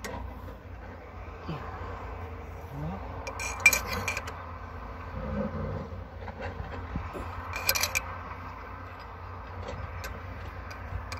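Steel hand tools clinking and scraping against a metal part in two short bursts, about three and a half seconds in and again near eight seconds, with a few lighter ticks between, over a steady low rumble.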